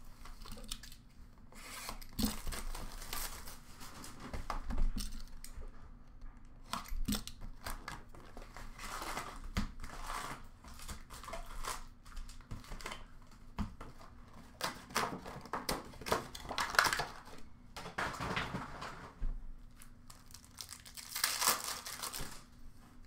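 Plastic wrap and foil card-pack wrappers from a hockey card box being torn open and crinkled by hand, in irregular bursts, with a few light knocks as the box and packs are handled.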